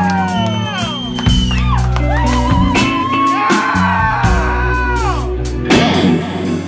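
Live rock band playing loudly, with a lead electric guitar holding long notes that bend and slide downward over bass and drums.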